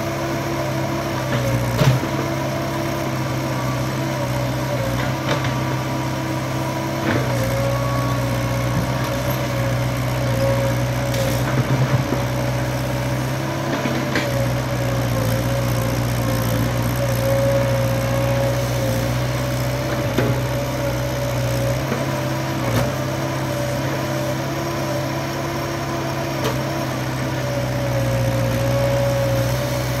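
Kobelco SK03 excavator's diesel engine running at a steady speed while the machine works, with a steady whining tone over the engine and a few brief knocks and clanks here and there.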